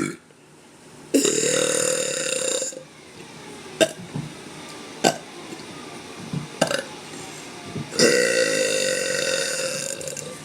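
A woman burping: two long, drawn-out burps, the first about a second and a half long and the second about two seconds long and slowly fading, with a few short, sharp sounds between them.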